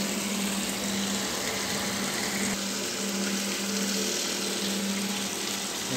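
Flexicone 110i centrifugal gold concentrator running steadily, its electric motor giving a constant hum with one steady low tone, over the rush of water running down the sluice into the spinning cone.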